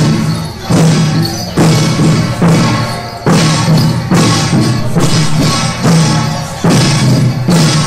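Percussion of a Taiwanese flower-drum troupe beating a steady processional rhythm: a loud struck stroke a little more than once a second, each ringing on with a bright metallic shimmer.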